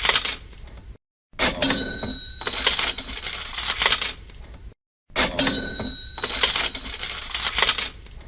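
Cash register sound effect on a loop: a few clicks and a bell ding, then a rattle of coins, repeating about every four seconds with a short silence between. The tail of one round is heard first, then two full rounds.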